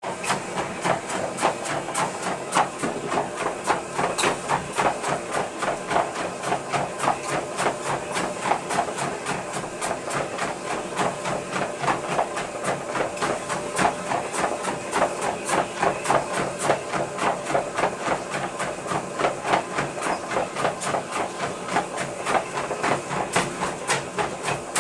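A motorized treadmill running with a steady hum, with a Gordon setter's paws striking the moving belt in a quick, even run of footfalls, several a second.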